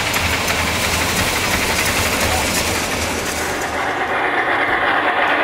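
The Rhaetian Railway steam locomotive Rhätia passing with its train: steady steam exhaust and wheel clatter on the rails. About four seconds in this gives way to a thinner, quieter steam sound from the Massoth XLS-M1 sound decoder in a G-scale model of the locomotive.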